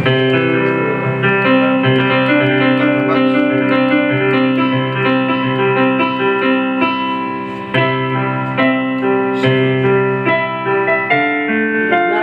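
Casio electronic keyboard playing a tune in a piano voice: a melody over sustained chords, with notes changing about every half second.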